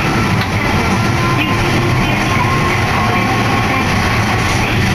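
A Hakodate city streetcar running along its line, heard from inside the car as a steady rumble, with music playing along with it.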